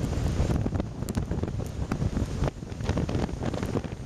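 Storm-force wind buffeting and popping on the microphone, over the rush of heavy storm surf breaking, with a few scattered sharp ticks.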